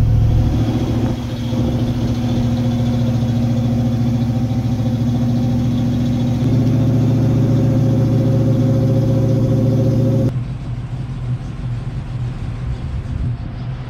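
1965 Ford Mustang fastback's engine idling steadily, cold-started after sitting about three months. Its note shifts slightly about six seconds in and turns quieter about ten seconds in.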